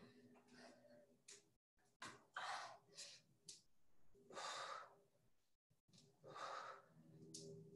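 Faint hard breathing of a person exerting through a workout: a string of sharp exhalations, with a longer, drawn-out breath about halfway through.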